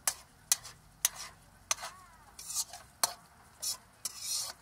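A cooking utensil stirring pieces of beef heart in a wok, knocking sharply against the pan about five times, with the sauce sizzling up in short flares near the end.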